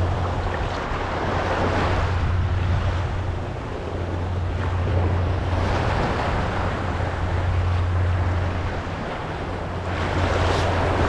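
Small surf waves washing in the shallows, swelling and easing every few seconds, with a steady low wind rumble on the microphone.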